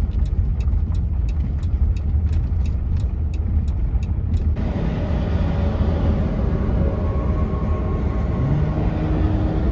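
Steady road and engine rumble inside a minivan's cabin while driving. For the first four and a half seconds a turn signal ticks evenly, about three ticks a second, then stops. A low drone comes in near the end.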